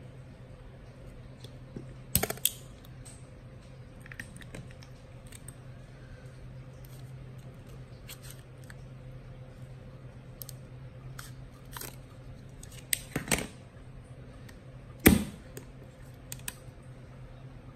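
Clicks and taps of a Hasselblad XPAN II film camera being handled: its back door is opened and snapped shut while film is worked in the chamber. There are several sharp clicks, with the loudest snap about three-quarters of the way through, over a steady low hum.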